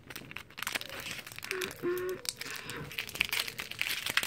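Foil wrapper of a Pokémon trading-card booster pack crinkling irregularly as it is handled and opened by hand.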